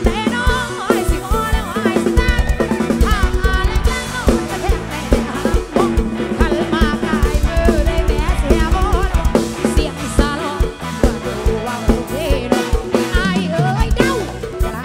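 Live band playing a mor lam song, led by a drum kit with snare hits and fast bass-drum runs under a lead melody that bends in pitch.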